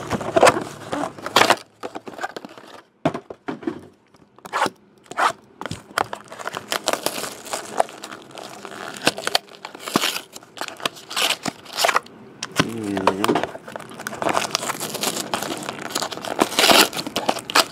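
Foil football card packs and clear plastic wrapping being torn open and crumpled by hand, in irregular sharp crinkles and rustles.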